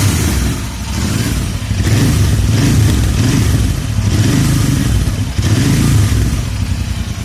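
Royal Enfield Interceptor 650's parallel-twin engine, just started, revved in several throttle blips through its twin exhausts, the note rising and falling with each, then easing back near the end.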